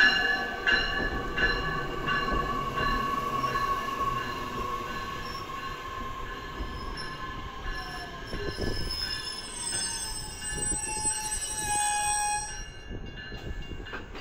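Metra Electric bi-level electric train braking to a stop beside the platform. Wheels click over rail joints at a slowing rhythm, with high-pitched wheel and brake squeal and a falling electric whine, and the sound dies away about 12 seconds in as the train halts.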